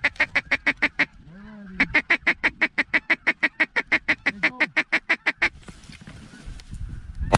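Duck calling at an incoming flock: two long runs of rapid, evenly spaced short quacking notes, about six a second, with a few drawn-out quacks between them. A single sharp crack comes at the very end.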